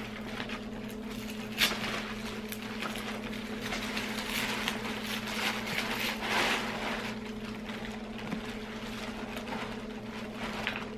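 Steady hum from the motor of a Rock 'n Play infant rocking sleeper. Over it come rustling and a click as a leather tote and its plastic and tissue packing are handled, the rustling heaviest in the middle.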